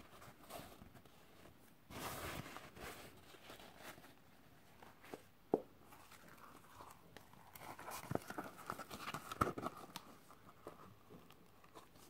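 Faint handling sounds: a paper towel rustling, a sharp knock about halfway, then a longer scratchy, clicking run as the zipper on a Cordura nylon pouch is pulled open.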